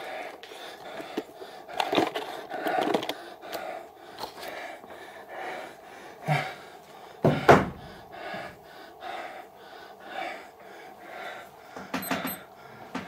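A man's quick, heavy breathing close to the microphone, with handling clicks and knocks from a handheld camera. The loudest event is a sharp knock about seven and a half seconds in.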